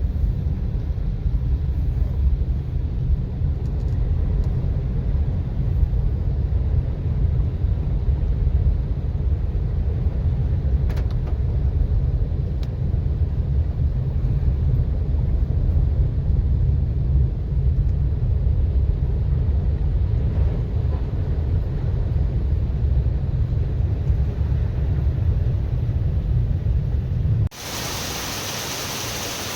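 Heavy, gusting low rumble of wind on the microphone in a rainstorm, with faint rain underneath. About two seconds before the end it cuts abruptly to a steady hiss of pouring rain.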